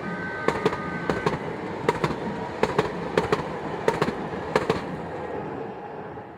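San Diego Trolley light-rail train passing, its wheels clacking over rail joints in quick pairs of sharp clicks over a steady rumble. A few steady high tones sound in the first second or so, and the train fades away about five seconds in.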